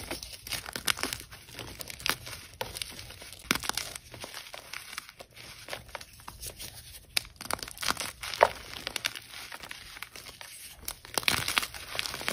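Hands breaking and crushing blocks of blue-dyed gym chalk: an irregular run of crumbly crunches and cracks, with a few louder snaps.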